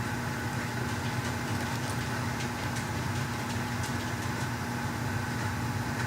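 Steady low hum of a household water heater running, with faint light ticks of tape being handled over it.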